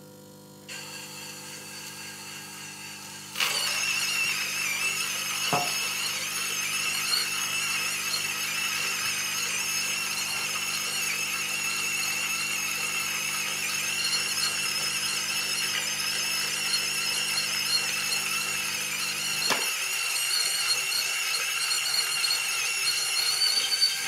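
Gaggia Classic Evo espresso machine's vibratory pump running while it pulls an espresso shot: a steady buzz with a high whine over it from about three seconds in. The low hum stops about twenty seconds in, and there is a single click early on.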